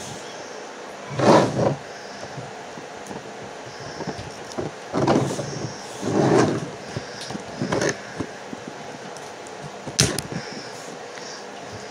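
Cooked Dungeness crab shell being cracked and pulled apart by hand: a string of short crunching, tearing noises, with a sharp snap near the end.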